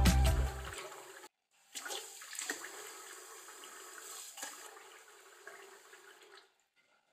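Background music fading out in the first second, then water running steadily and more quietly, with a few light knocks, stopping about six seconds in.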